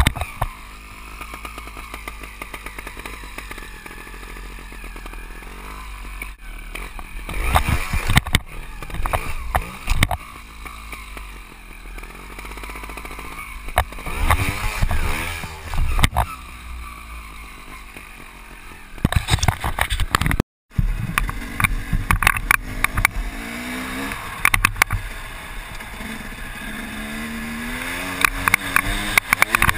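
Dirt bike engine revving up and down over and over as the rider opens and closes the throttle, heard from a helmet-mounted camera. The sound cuts out for an instant about two-thirds of the way through.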